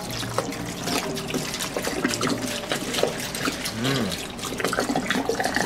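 Soy sauce pouring in a continuous gush from a bottle into a stockpot of simmering ingredients, a steady trickling splash.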